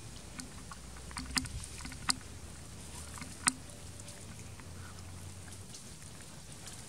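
Three sharp clicks or snaps within about two seconds, the last the loudest, over a low steady rumble.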